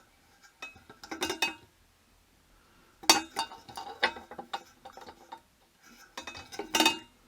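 Clinking of metal and glass as an old hanging saloon lantern, converted to burn oil, is handled and adjusted. The clinks come in three short clusters: about a second in, from about three to five seconds, and again near the end.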